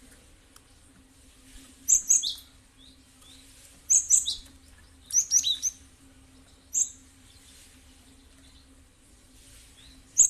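Cinereous tit (gelatik batu) calling in short bursts of sharp, high, downslurred chirps, four bursts in the first seven seconds, then a pause before another burst at the very end. A faint steady hum runs underneath.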